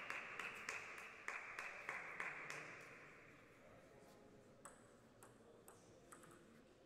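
A table tennis ball clicking off bat and table in a rally, a few sharp clicks about half a second apart starting past the halfway mark. Before that, a faint hiss with light clicks fades away over the first three seconds.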